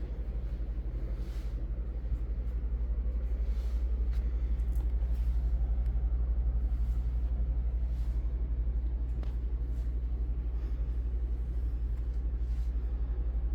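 A steady low rumble with a fast, even flutter, and faint soft knocks every second or two.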